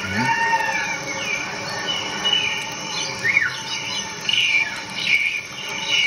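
Bird-like chirps and short whistled calls that glide up and down in pitch, over a steady background of several held tones.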